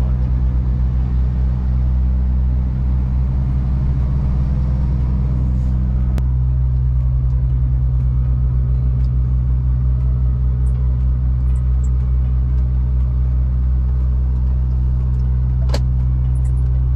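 Scania truck's diesel engine droning steadily inside the cab as the truck drives off, a steady low hum. A short click about six seconds in and another near the end.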